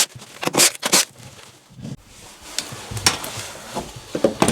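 Sharp metallic clicks, taps and clattering of hand tools and hardware being handled, several separate knocks in a few seconds.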